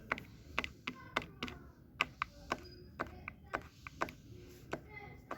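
Fidget toy being clicked and tapped by hand: sharp, uneven clicks about three a second.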